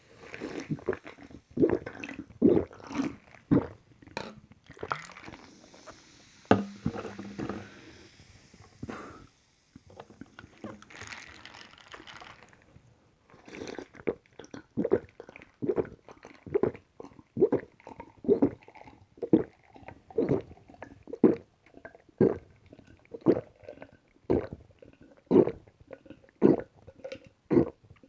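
Close-miked gulping of a carbonated lemon soda: a steady run of swallows, about one and a half a second, through the second half, after some uneven sips and a brief hiss near the middle.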